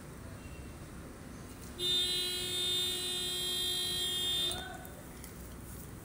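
A steady, buzzy tone at one fixed pitch sounds for about two and a half seconds, starting about two seconds in, then stops.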